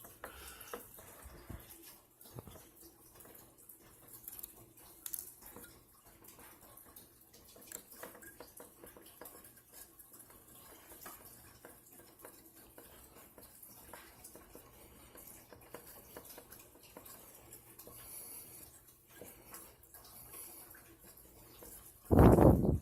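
Faint scattered small metallic clicks and taps of a circuit board being handled, with component leads being wiggled off by hand. A loud thump just before the end.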